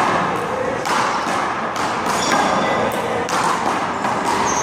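Handball rally: a small rubber handball smacked by hands and slapping off the wall, several sharp hits about a second apart.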